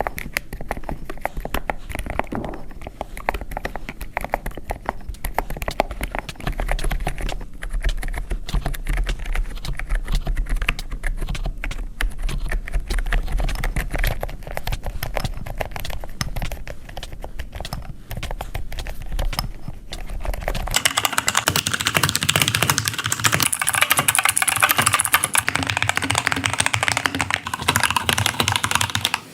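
Fast continuous typing on a computer keyboard, a dense run of key clicks over a low hum. About 21 s in the sound changes: the hum drops out and the keystrokes become brighter, sharper and louder.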